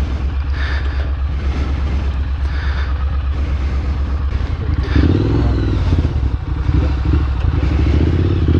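Triumph Street Scrambler's parallel-twin engine running at low revs as the bike creeps along, the throttle opening about five seconds in so the engine note gets louder and fuller.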